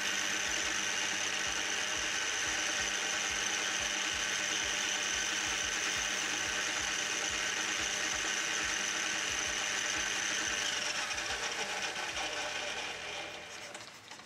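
Metal lathe running in reverse while an insert tool turns a 90-degree point on a 1045 steel pin: a steady high whine over a fast, uneven low ticking. About eleven seconds in, the sound fades as the lathe winds down to a stop.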